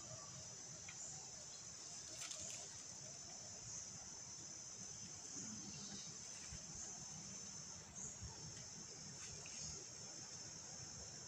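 Steady, faint, high-pitched insect chirring, typical of crickets, with a few faint clicks and rustles.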